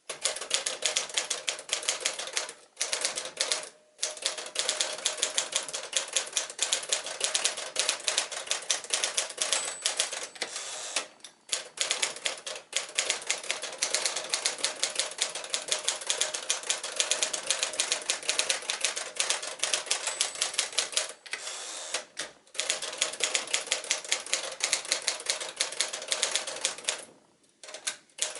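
A 1955 Smith-Corona Sterling manual typewriter being typed on: a fast, steady clatter of typebars striking the platen, broken by a few short pauses.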